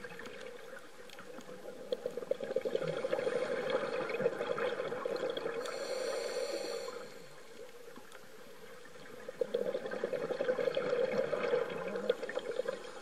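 Scuba regulator breathing heard underwater: two long bursts of bubbling, crackling exhaled air, each followed by the hiss of an inhale through the regulator.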